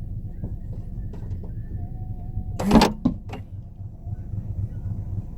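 Steady low rumble with a loud clunk about two and a half seconds in, followed by two smaller clicks: the sound of a car's boot lid or door being opened.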